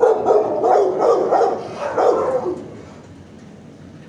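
Dogs barking in a shelter kennel: a quick run of loud barks over the first two and a half seconds.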